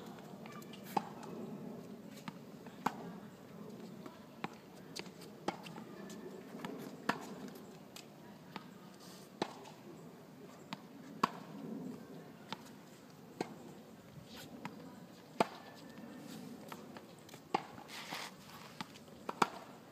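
Tennis rally on a hard court: sharp pops of the racket striking the ball and the ball bouncing on the court, one every second or two.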